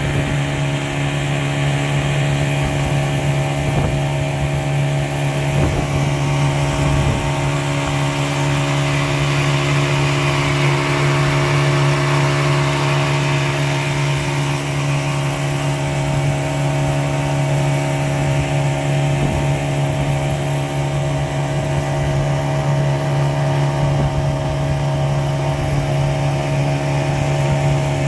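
Small boat's outboard motor running steadily at constant speed, pushing the boat along. Its pitch holds even throughout.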